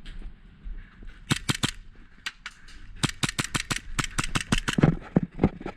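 Airsoft guns firing quick, sharp shots: a short string of about five about a second in, then a longer string of about fifteen, several a second and unevenly spaced, from about three seconds in to near the end.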